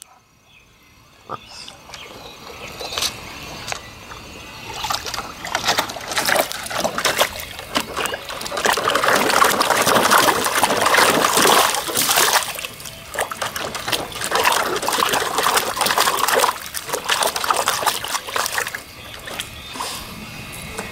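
Water splashing and sloshing in a shallow plastic kiddie pool as a Boston Terrier paws and steps through it. The splashing builds a few seconds in, is busiest and loudest through the middle, and eases off near the end.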